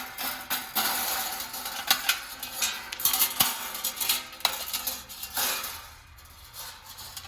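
Metal and ceramic parts of a space heater's heating element clinking, rattling and scraping as the coils and their insulator hooks are worked loose from the metal housing: an irregular clatter of sharp clicks, easing off near the end.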